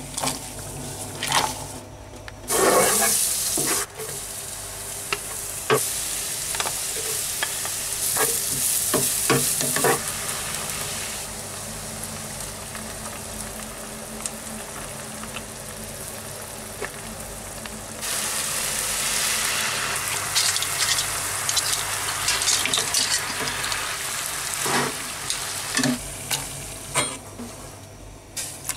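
Garlic frying and sizzling in butter in a pan, stirred with a wooden spatula that clicks and scrapes against the pan. The sizzle shifts abruptly in level several times.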